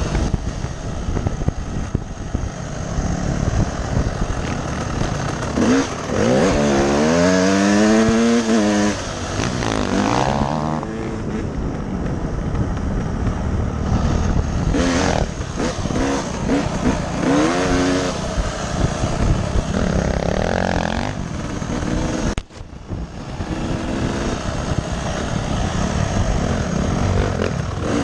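Dirt bike engine revving up and down as the rider works the throttle and gears on a trail, with wind noise on the helmet microphone. The engine pitch climbs in long rises several times, and the sound drops out briefly and suddenly about two-thirds of the way through.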